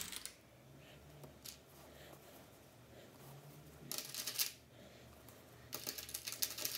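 Plastic sewing clips rattling in their clear plastic box as a hand rummages for them, in two short clattering bursts, the first about four seconds in and the second near the end.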